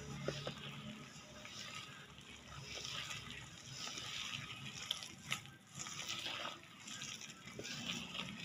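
A hand mixing wet ground-lentil paste into gram flour in a steel bowl: wet mixing and scraping sounds in uneven strokes, with a click about five seconds in.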